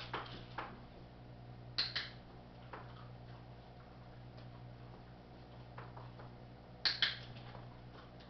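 Handheld dog-training clicker clicked twice, each a sharp double click, about two seconds in and again near seven seconds, marking the dog for staying calm. Fainter clicks and taps come in between, over a steady low hum.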